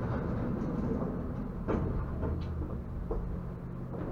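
Stadler Variobahn tram heard from inside the passenger compartment: a steady low hum and rumble with a few short knocks about one and a half to three seconds in.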